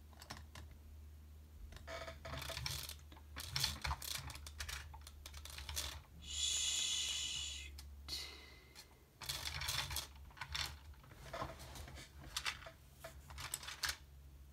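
Plastic markers clicking and clattering as someone rummages through them looking for a green marker, with a longer rasp about six seconds in.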